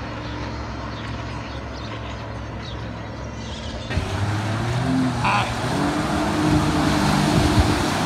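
Jet ski engines running at speed across the water, first a steady distant drone, then abruptly louder and closer about four seconds in, with the hiss of spray thrown up by the passing skis.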